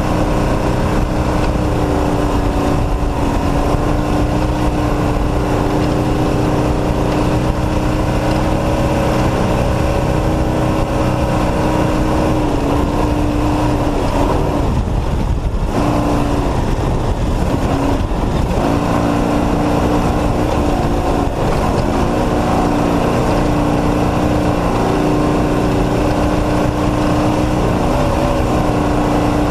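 Off-road race truck's engine running hard at high, steady revs. About halfway through the note breaks and drops briefly, as on a lift of the throttle, then climbs back and holds steady again.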